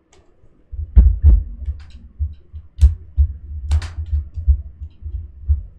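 ASUS ExpertBook laptop's plastic bottom cover being pressed back on: several sharp clicks as its clips snap into place, among dull low thumps from pressing on the chassis.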